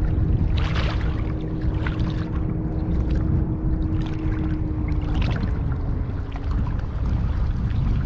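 A boat motor running with a steady hum over a low rumble; the hum drops away about five seconds in.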